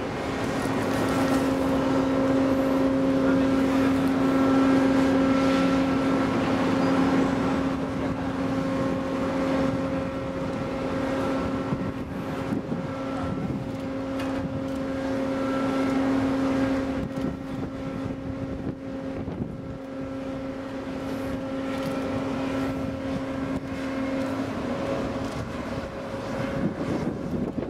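Steady droning hum of the ship's crane machinery hoisting a railcar off the deck, with a constant even pitch over a background rush. The hum fades out near the end.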